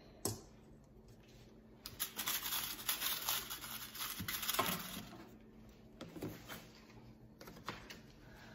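Hands handling small metal push-type glazier points and tools on a tabletop. A single click comes first, then about three seconds of dense clicking and crinkling, and a few lighter clicks near the end.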